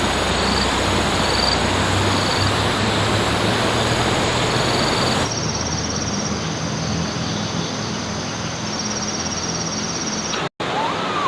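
Steady outdoor rushing noise with faint high trills and short repeated chirps above it. The sound changes abruptly about five seconds in and cuts out for an instant near the end.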